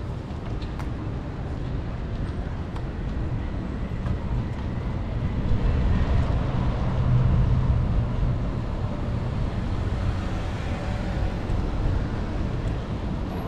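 Steady low rumble of wind on the microphone and bicycle tyres rolling over pavement, swelling a little about halfway through, with a few faint clicks in the first three seconds.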